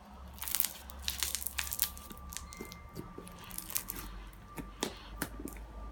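Play-Doh Krackle Slime squeezed and pressed in the hands, crackling with many sharp, irregular pops; the crackling works air bubbles into the slime.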